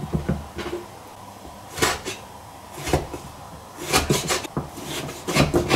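Chinese cleaver slicing hard, nearly all-lean Hunan cured pork on a wooden cutting board: the blade knocks down onto the board at irregular intervals, several strikes close together near the end.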